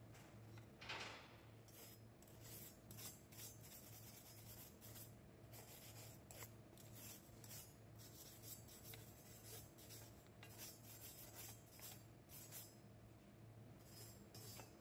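Near silence: a faint steady low hum with scattered faint scratching and rubbing clicks, and one brief swish about a second in.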